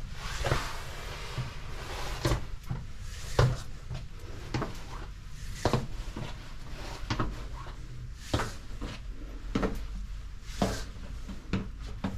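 Footsteps on a narrow spiral staircase inside a brick tower, a short knock about once a second at an even walking pace, over a low steady rumble.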